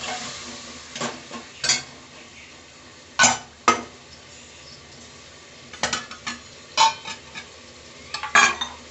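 A ladle stirring potatoes, peas and masala in a pressure cooker, clanking against the pot at irregular moments, with faint sizzling of the frying masala underneath.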